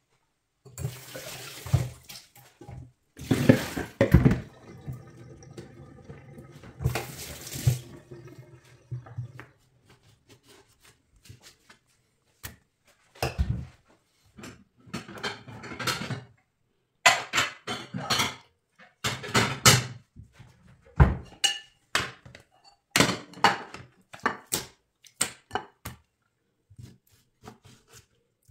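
Kitchen tap running and splashing into a steel sink for the first several seconds, with louder surges. Then a string of separate knocks and scrapes of a knife on raw buffalo tongue and a plastic cutting board as the tongue's skin is cut away.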